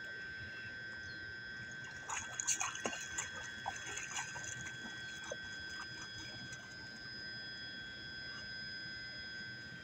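A dog wading and splashing through shallow pond water, with a run of splashes about two to four seconds in. A steady high-pitched hum runs underneath.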